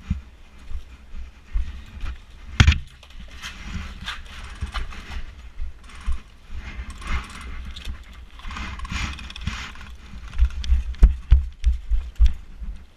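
Irregular knocks, clicks and rattling of a moving, body-carried camera, with one sharp knock about two and a half seconds in and a run of heavy thumps near the end.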